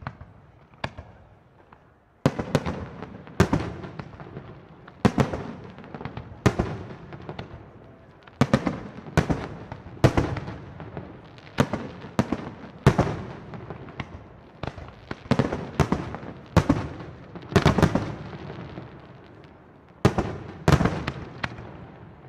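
Aerial firework shells bursting in a run of sharp bangs, about one a second, each followed by a rolling echo. The barrage starts about two seconds in after a quiet moment and thins out near the end.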